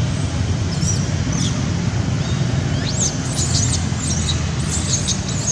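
High, sliding squeaks from a baby long-tailed macaque: a couple about a second in, then a quick run of them from about three seconds on, over a steady low rumble.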